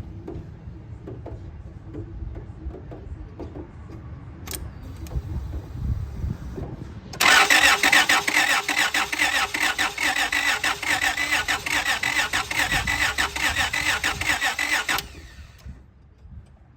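A 2003 Honda Odyssey's 3.5 L V6 is cranked by its starter motor for about eight seconds, rapid and even, then released; it cranks but does not fire because there is no spark. A single click comes a few seconds before the cranking starts.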